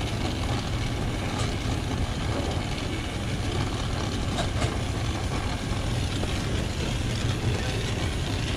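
Brazing torch flame running steadily, a constant low rushing hiss, while a copper refrigeration line joint is heated and brazed.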